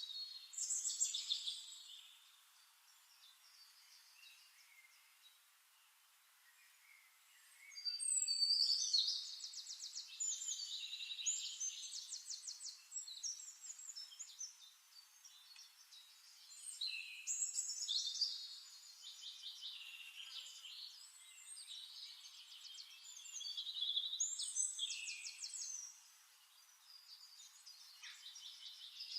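Birds singing in bouts of rapid, high chirping trills a few seconds long, with quieter pauses between the bouts.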